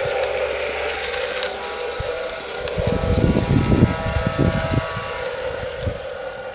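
Lionel LionChief RS3 model diesel locomotive running on a garden railway, its onboard sound system giving a steady hum of several held tones. Gusts of wind rumble on the microphone from about three to five seconds in.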